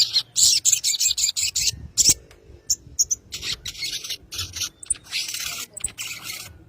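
A sogon (spiderhunter) calling: rapid runs of harsh, buzzy chattering notes, with a short lull about two seconds in before a second long run that stops just before the end.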